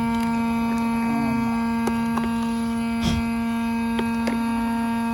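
A loud, steady electrical hum: one low tone with a ladder of overtones above it, with a few faint clicks.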